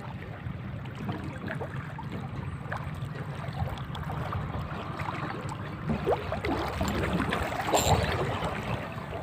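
Steady wash of sea water and wind on the microphone, with a few light knocks and rustles from about six to eight seconds in.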